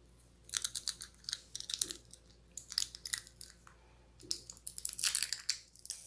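Packaging wrap being handled and crinkled, in four short bursts of sharp crackles with quiet gaps between them.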